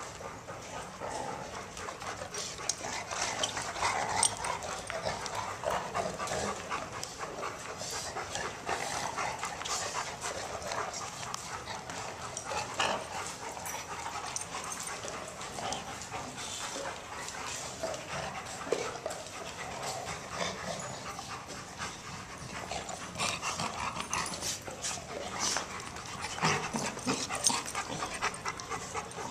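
Several dogs play-fighting, with panting and dog vocalizations throughout, and many short clicks and scuffles from their rough play.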